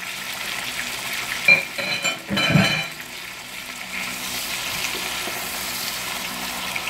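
Sliced tomato, onion and chopped garlic sizzling in hot oil in a large pot while being stirred with a wooden spoon, with two brief louder knocks about one and a half and two and a half seconds in.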